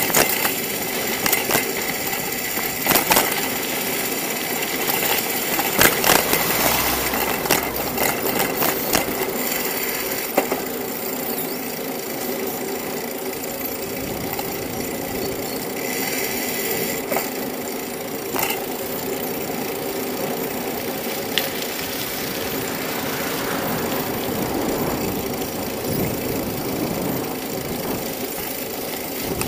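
Bicycle riding over an asphalt street, heard through a camera mounted on the bike: steady road and rolling noise with rattling, and a run of sharp knocks from bumps in about the first ten seconds.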